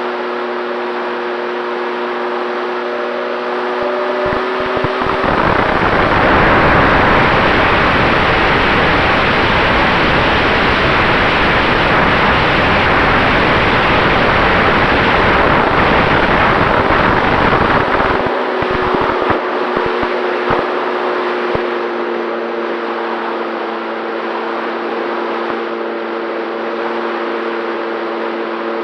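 Electric motor and propeller of an FX-79 flying-wing RC plane, heard from on board as a steady whine mixed with wind rush. About five seconds in the motor tone drops out under a louder rush of air for about thirteen seconds, then the whine returns at a slightly lower pitch.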